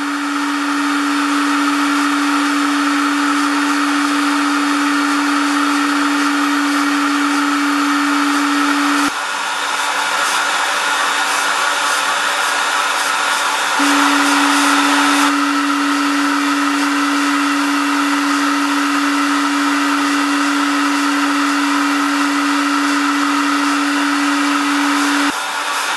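Hot-air heat gun running, the rush of its blown air with a steady motor hum, used to heat a wire-and-hook joint for powder coating. The hum drops out for about five seconds about nine seconds in, leaving the air rush, then comes back.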